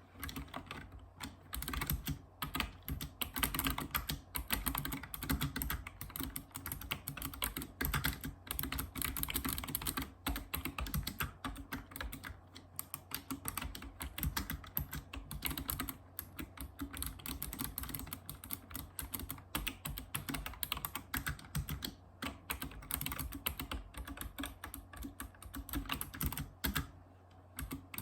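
Continuous fast typing on a Razer Ornata Chroma keyboard: a dense run of clicky key presses from its mecha-membrane switches, broken by a few short pauses.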